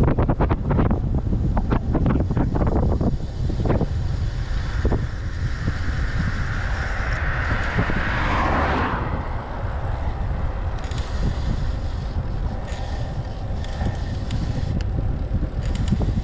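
Wind buffeting the action camera on a fast road-bike descent: a heavy, gusty rumble. About halfway through, a passing vehicle's noise swells and fades away again.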